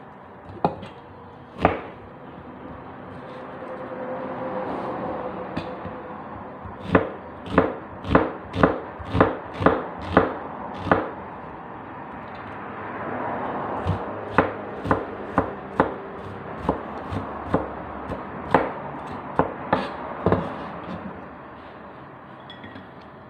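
Cleaver chopping an onion on a thick wooden chopping block. Two single knocks come first, then two runs of evenly spaced chops at about two a second, with softer rubbing and scraping between the runs.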